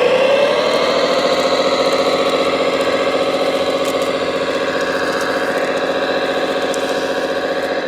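Engine sound of a large remote-control construction machine or truck, its pitch climbing over about the first second, then running steadily.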